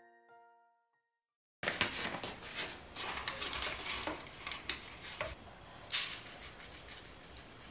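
Piano music fades out, and after a moment's silence comes a run of light plastic clicks and clatter from a Moccamaster drip coffee maker's filter basket being set up. Near the end, ground coffee is tipped from the grinder's cup into the paper filter.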